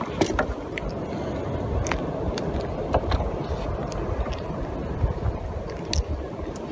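Wind buffeting the microphone with a steady low rumble, broken by a handful of light clicks and knocks.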